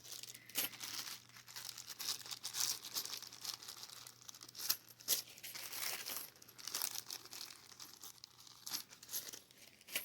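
Plastic bags of board game pieces crinkling and rustling as they are handled, on and off, with short sharp crackles.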